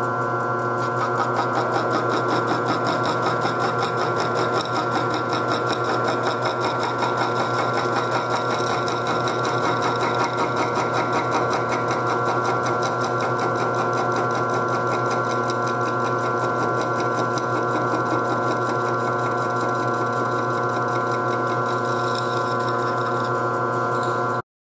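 Milling machine running steadily while its disc cutter cuts teeth into an aluminum worm-gear blank held in a dividing head, with a rapid, even ticking over a steady hum. It cuts off abruptly near the end.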